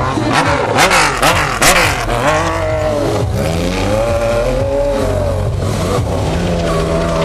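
Stunt motorcycle's engine revving up and down repeatedly, with a few sharp louder bursts in the first two seconds, then holding a steadier pitch near the end.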